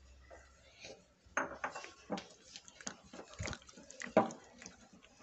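Silicone spatula scraping and knocking against a glass mixing bowl while folding cake batter, with a run of clinks and taps from about a second and a half in; the loudest knock comes near the end.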